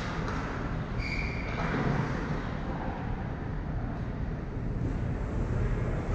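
Steady low rumble of an ice-arena hall with distant hockey play, and a short high tone about a second in.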